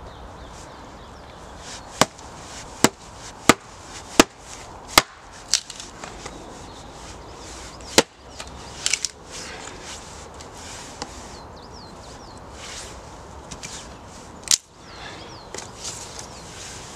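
Ray Mears bushcraft axe striking and splitting thin sticks of wood. It makes a series of sharp wooden knocks, about six in quick even succession a couple of seconds in, then a few more scattered blows with a loud one near the end.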